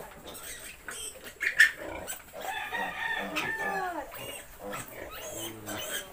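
Ten-day-old piglet squealing in a run of short falling cries while held by the hind legs and given a vitamin injection.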